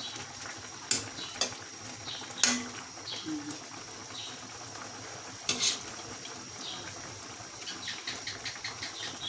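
Metal ladle clinking and scraping against a metal wok while stirring soup, with scattered sharp clinks, the loudest about halfway through, and a quick run of small taps near the end.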